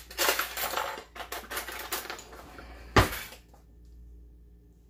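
Metal cutlery clinking and clattering against a ceramic plate, ending in one sharp clink about three seconds in.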